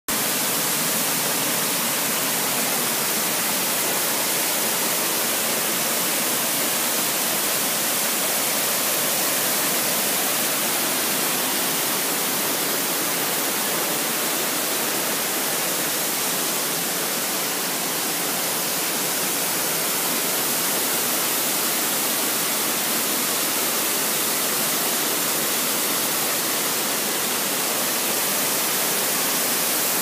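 Steady rushing hiss of a waterfall cascading over granite boulders, even throughout.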